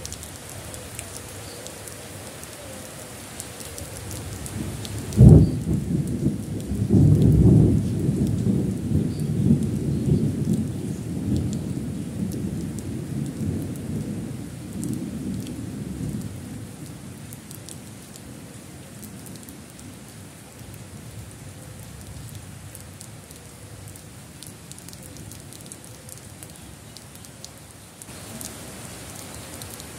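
Steady rain falling on a wet concrete path and garden plants. About five seconds in a sharp thunderclap cracks, followed by thunder rumbling and fading away over about ten seconds.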